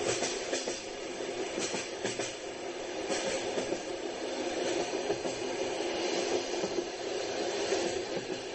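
Train running along the track with a steady rumble, its wheels clicking over rail joints a few times in the first half.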